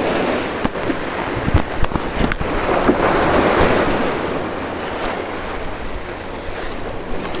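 Sea surf washing on a rocky shore with wind buffeting the microphone; the wash swells about three seconds in, and a few sharp knocks come in the first couple of seconds.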